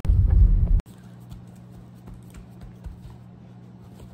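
Street ambience: a loud low rumble for the first second, then a steady low hum with faint scattered taps.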